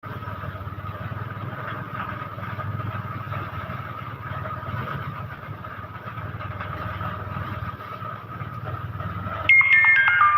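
Manual pedal-driven rice thresher's drum spinning with a steady whirring drone. About nine and a half seconds in, a sudden louder run of high ringing tones cuts in, stepping down in pitch.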